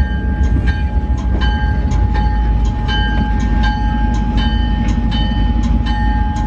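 Passenger train locomotive standing and running with a deep steady rumble and a steady high tone, while a metallic ringing strike repeats about twice a second.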